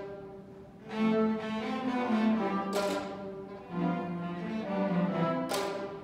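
String orchestra of violins and cellos bowing sustained chords, swelling about a second in, with a sharp noisy accent around three seconds in and another near the end.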